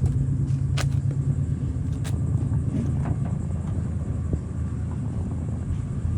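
Steady low vehicle rumble, with a few light clicks over it.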